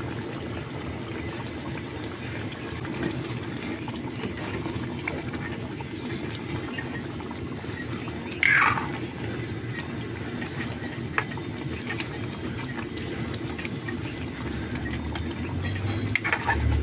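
Chicken curry gravy simmering in an aluminium kadai while a steel ladle stirs it, with light clinks of the ladle against the pan. A short falling squeak about eight and a half seconds in, and a low rumble building near the end.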